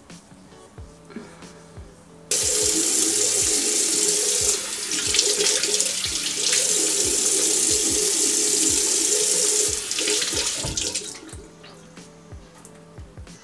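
Bathroom tap running into a sink, with water splashing as the face is rinsed; it starts suddenly about two seconds in and stops about ten seconds in.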